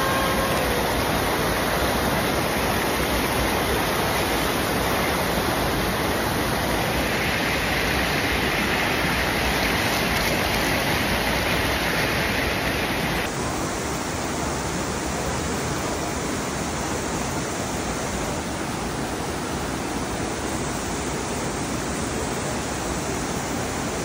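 Water of a rocky mountain stream rushing over boulders and rapids: a steady rush, a little softer and duller after about thirteen seconds.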